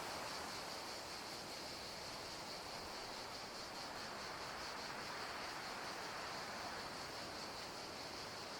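Steady, even hiss of background ambience with no animal call in it.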